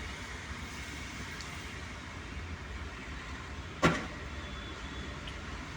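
A single sharp click a little under four seconds in, over a steady low background noise.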